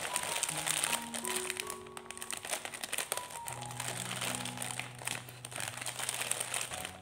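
Thin plastic instant-noodle packets crinkling as they are handled and snipped open with scissors, over background music with slow held notes.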